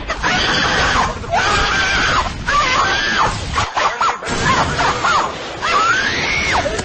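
A high-pitched voice screaming in repeated rising and falling glides, over music, with a short break about four seconds in.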